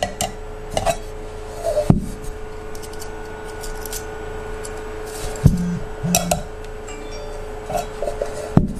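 Metal camping cook pots and a small folding gas stove being handled, knocking and clinking together in scattered bursts, with a couple of heavier knocks about 2 and 5.5 seconds in.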